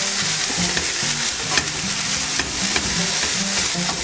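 Diced onion and peppers frying in a stainless steel frying pan, a steady sizzle, while a wooden slotted spatula stirs them with frequent short scrapes and taps against the pan.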